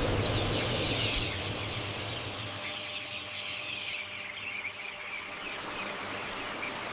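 A large mass of day-old chicks peeping together, a dense, continuous high chatter. A low machine hum underneath fades out about a second and a half in.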